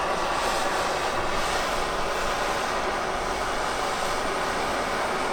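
Steady rushing hiss of a torch flame melting material to plug a hole, holding an even level throughout.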